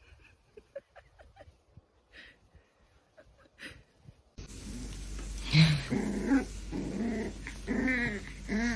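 A dog vocalizing in short, bending bouts of growling and whining, loud from about halfway in, after a quieter stretch of faint clicks and small squeaks.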